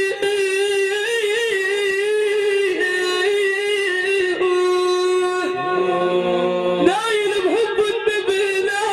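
A solo male voice chanting Islamic devotional praise for the Prophet (madih), with ornamented turns on each note and one note held steady near the middle.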